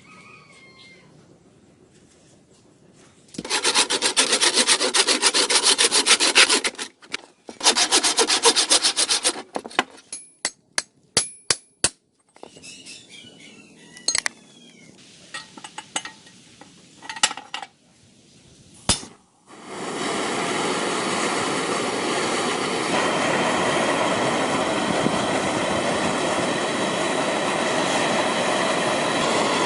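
Rapid hand-tool strokes rasping on the old rusty hammer in two spells of a few seconds each, followed by a few sharp metallic clinks and taps. About twenty seconds in, an electric power tool starts and runs steadily on.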